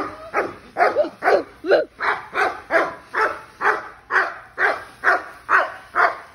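A dog barking over and over at a steady pace, about two barks a second.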